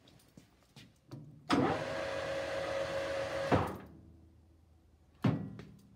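Chester Cub 630 centre lathe started with a clunk about a second and a half in, its motor and headstock gearing running with a steady hum for about two seconds, then stopped with another clunk and winding down. A single sharp knock follows near the end.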